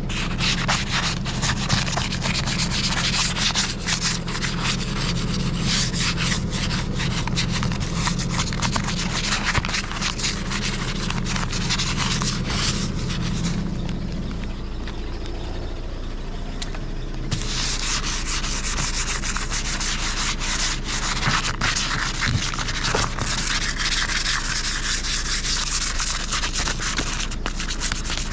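Ice being scraped off a car windshield with a plastic document sleeve, in fast, gritty strokes. The scraping eases off for a few seconds about halfway through and then starts again.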